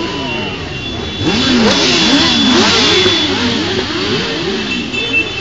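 Many motorcycles riding past close by, their engines revving, making overlapping pitches that rise and fall. The sound is loudest from about one to three seconds in, as a thick cluster of bikes goes by.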